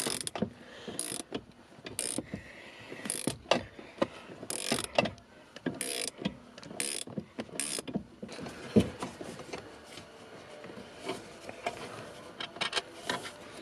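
Ratchet wrench on an extension clicking in short runs with pauses as it backs out the upper 13 mm bolt of a steering column shaft, with a sharper knock about nine seconds in.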